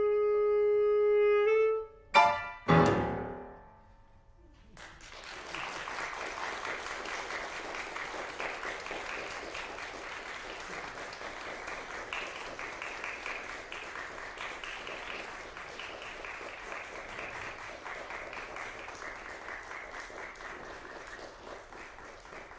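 A tenor saxophone holds a final note, then the trio of tenor sax, double bass and piano strikes two sharp closing chords that ring and die away. About five seconds in, audience applause starts and goes on steadily.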